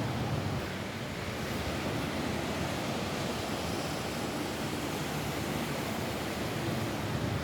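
Steady rain falling on a roof, an even unbroken hiss with no breaks or single drops standing out.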